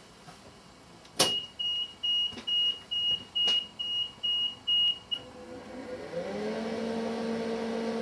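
The mains power supply for the test bench is switched on: a sharp click, then about nine short, high electronic beeps at two or three a second. After the beeps stop, a steady low electrical hum comes up, sliding briefly up in pitch before it settles as the supply comes up to full mains voltage.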